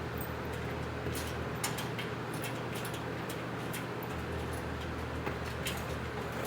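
Scattered light clicks and taps of metal chair parts and screws being handled and fitted, over a steady low hum.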